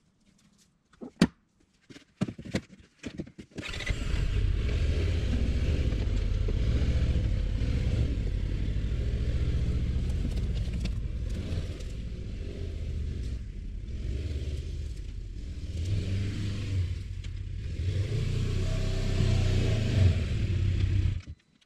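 A few light knocks, then an engine running steadily. It starts abruptly about four seconds in and cuts off suddenly near the end.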